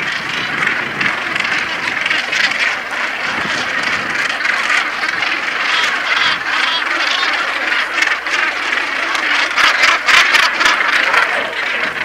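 Northern gannet colony: many birds calling at once in a dense, continuous din, with the calls thickening about ten seconds in.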